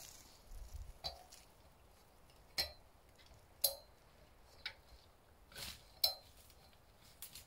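About six short, sharp clinks and knocks of hard objects, at uneven intervals of roughly a second, each with a brief ring.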